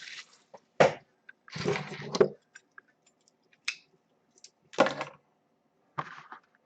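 Handling noise from a shrink-wrapped cardboard box of hockey cards being picked up and worked at on a table: a few sharp knocks and a scraping rustle, with quiet gaps between them.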